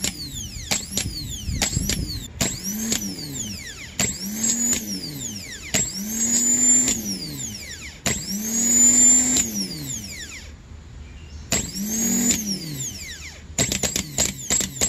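Gear-reduction starter motor from a 2006 Pontiac GTO's 6.0L LS2, run on the bench: a few short clicking bursts, then five spins of one to two seconds each, the motor whining up to speed and winding down as it is released, then a quick run of clicks near the end. With its brushes freshly cleaned of carbon, it engages every time.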